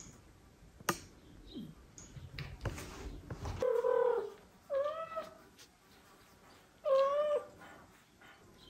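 A cat meows three times in the second half, each a short call that rises and falls in pitch. Before the calls there is a knock and some light rustling.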